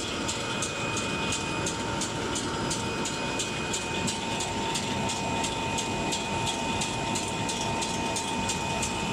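Chocolate enrobing machine running with its wire-mesh conveyor and cooling-tunnel belt: a steady mechanical run with a steady whine and a fast, even ticking, about three ticks a second.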